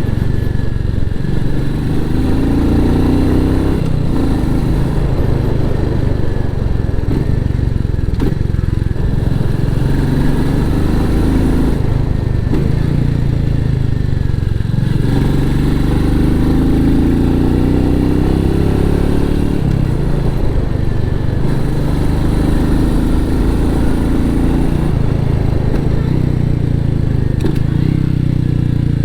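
Royal Enfield Meteor 350's single-cylinder engine running through its stock exhaust while riding, the revs climbing and dropping back several times.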